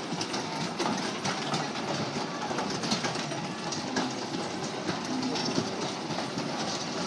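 Steady clattering rumble of amusement ride machinery as a kiddie motorcycle carousel turns, with many small rattles and clicks.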